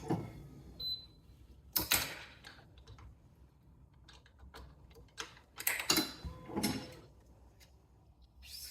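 Handling noises from badminton racquet stringing work: a few brief rubbing and clicking sounds, with a longer run of them about six seconds in.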